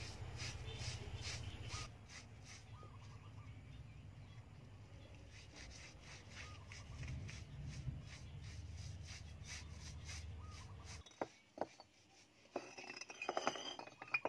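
A small brush scrubbing white paint onto a rough cement wall in short, even strokes, about three a second. Near the end come a few sharp knocks and a louder burst of scraping.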